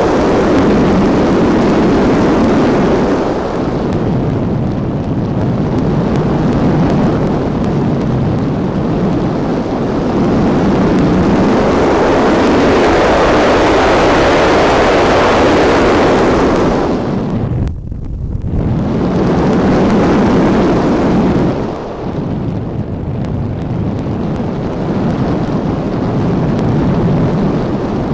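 Loud wind noise on the onboard camera microphone of an RC plane in flight: a steady rush that swells and eases, with two short drops in level near the end.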